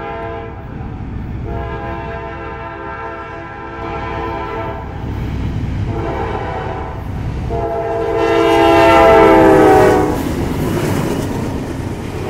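Norfolk Southern DASH-9 locomotive's air horn sounding the grade-crossing signal as the train approaches: a long blast, a short one, then a louder long blast whose chord drops in pitch as the locomotive passes close by. Afterwards the locomotives' diesel engines and wheels rumble past.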